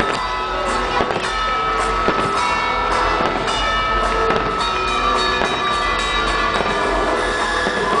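Music of the fireworks show's soundtrack playing, with fireworks shells bursting in a few sharp bangs about a second in, around two seconds in and past the middle.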